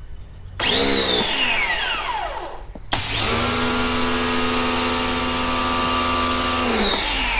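Tooluck 1800 W electric pressure washer, firing through its foam cannon. Its motor starts with a short burst and winds down in falling pitch. About three seconds in it starts again and runs steadily under a loud spray hiss for nearly four seconds, then winds down when the trigger is let go.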